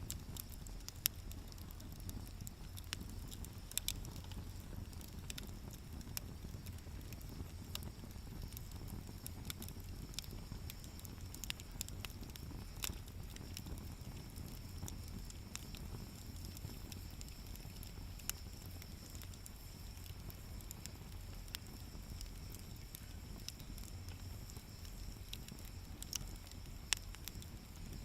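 Wood fire burning in a campfire stand, crackling with irregular sharp pops and snaps over a steady low background.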